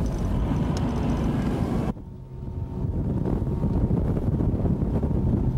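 Bass boat running at speed: the outboard motor's steady drone mixed with rushing wind on the microphone. The level drops sharply about two seconds in and builds back up within a second.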